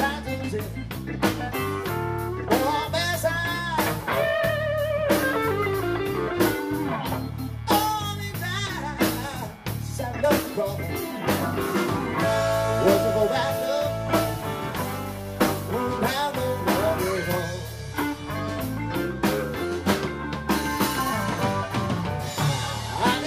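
Live blues band playing an instrumental break: electric guitar, bass guitar and drum kit keeping a steady beat under a bending lead line, with harmonica played near the end.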